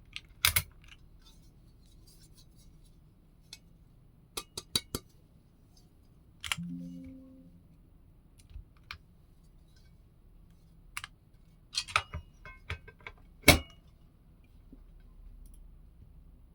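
Keys on a foamless Tech Bear 8-TKL mechanical keyboard, with Strawberry Jelly v2 linear switches on an aluminium plate, pressed one at a time and in short runs: scattered sharp clacks with pauses between them, the loudest near the end, and a short low hum about a third of the way in.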